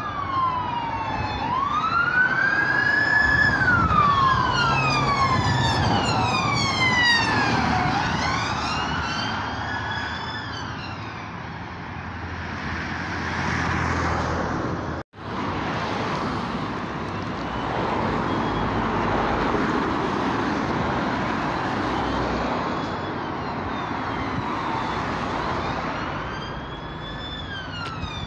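Emergency vehicle sirens wailing, two or more overlapping and out of step, rising and falling every second or two over passing traffic noise. After a cut about halfway through, the sirens are fainter under the road noise, then grow louder again near the end.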